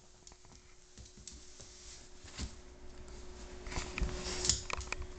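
A dog dragging a pet bed with a small dog in it: scattered light clicks and scuffs that grow louder and busier about four seconds in, over a faint steady hum.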